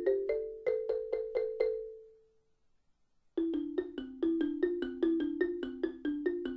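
Instrumental background music of quick struck notes, about four a second. The phrase fades out about two seconds in, there is a second of silence, and a new run of notes starts just after three seconds.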